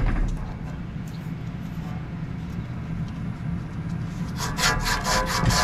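Rapid back-and-forth metal rasping at the hub and shaft of an old, rusty condenser fan motor, as the fan blade is worked loose. It starts about four and a half seconds in, after a quieter stretch with only a low hum.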